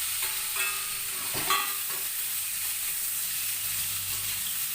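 Oil sizzling steadily in a frying pan as fried potatoes and eggs are added to onion and chilli paste and stirred in, with a short clatter of a utensil on the pan about a second and a half in.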